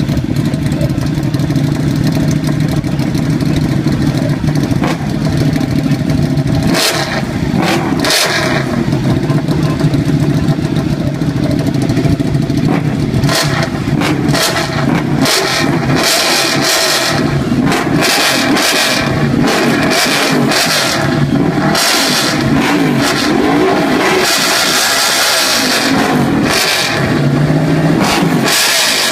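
Ducati 899 Panigale's 898 cc Superquadro twin running through an Austin Racing aftermarket exhaust, with the bike standing still. It idles steadily for the first six seconds or so, then is revved again and again, the pitch rising and falling with each throttle blip.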